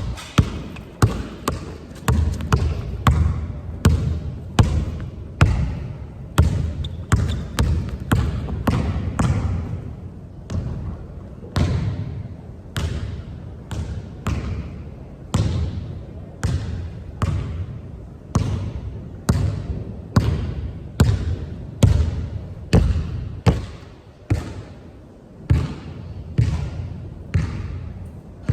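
Basketball being dribbled on a hard court: a continuous run of sharp bounces, a little under two a second, with an uneven rhythm.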